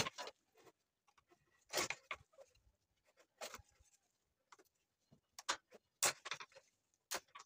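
Flat-blade screwdriver prying open the bent crimp tabs on a radiator core's metal header plate, releasing the plastic side tank: short metallic clicks and scrapes at irregular intervals, the loudest right at the start and about six seconds in.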